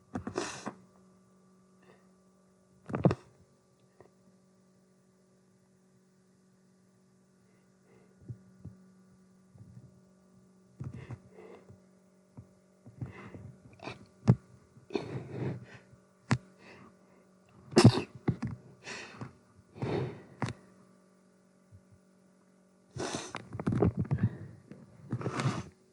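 A person sneezing again and again. There are single sneezes near the start and about three seconds in, then a run of them in the second half, the loudest past the middle. A steady electrical hum runs underneath.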